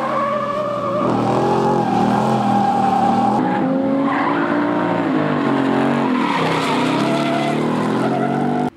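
A 2022 Mustang GT's 5.0 Coyote V8 held at high revs while drifting, its note wavering up and down, with the rear tyres squealing. The sound cuts off abruptly at the end.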